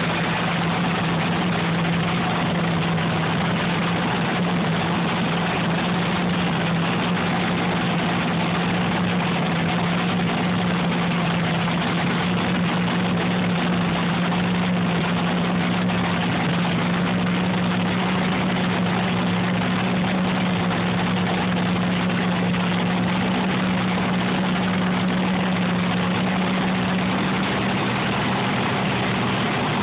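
Vintage nitro-burning Top Fuel dragster engines idling together at a cacklefest, a loud, steady cackle whose pitch creeps slightly higher over time.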